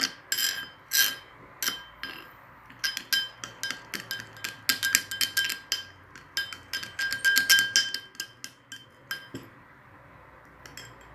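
A spoon stirring sunflower oil and powdered sugar together, clinking rapidly and repeatedly against the side of the bowl with a bright ringing tone at each knock. The clinking stops about nine and a half seconds in.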